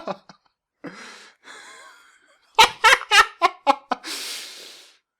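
A man laughing: a quick run of short, pitched bursts of laughter, then a long breathy exhale that fades out.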